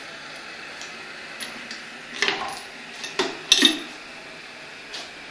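Brass rifle cartridge cases dropping out of a homemade rotary case-annealing machine into a plastic tub, clinking against the cases already in it. A few light ticks come first, then several metallic clinks, the loudest a double clink about three and a half seconds in, over a steady hiss.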